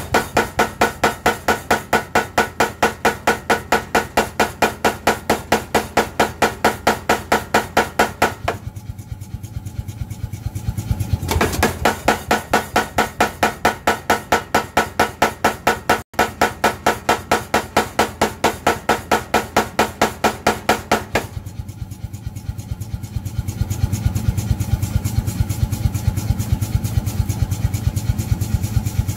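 A 16 kg Ellsen power air hammer cycles steadily at about four to five blows a second, hammering a bright orange bar with sharp, ringing hits. About eight and a half seconds in, and again about twenty-one seconds in, the blows turn softer and duller over the hum of the machine's motor. The hard hits come back at about eleven seconds.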